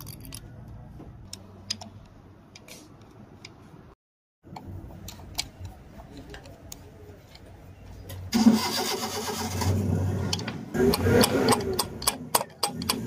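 Light metal clicks of a screwdriver working the screws inside the pump housing. About eight seconds in, a nearby vehicle engine starts and runs loudly, its pitch wavering, with a few sharp clicks on top.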